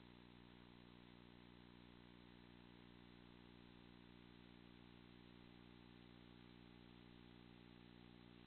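Near silence: a steady low hum and faint hiss with no events.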